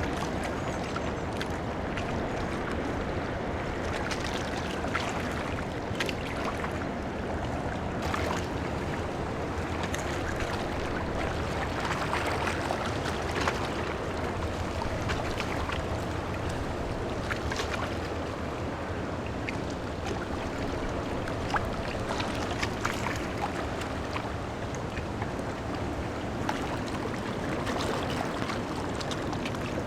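Large cruise ship passing close by on a canal: a steady low rumble from the ship, with wash and wind noise and scattered small clicks throughout.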